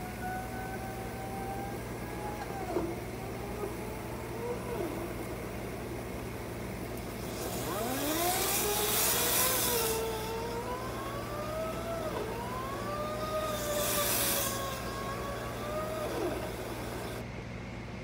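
Compressed air rushing through a dryer vent-cleaning hose pushed up the vent, a steady hiss with a wavering whine that glides up and down in pitch. It surges louder twice as bursts of lint blow out, and the hiss cuts off about a second before the end.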